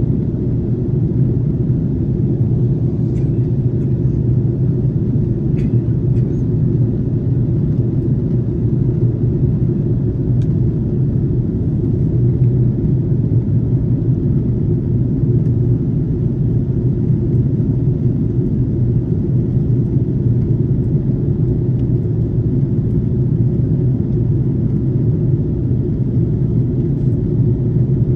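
Steady low rumble of cabin noise inside an Airbus A330-300 airliner, with a few faint ticks in the first ten seconds.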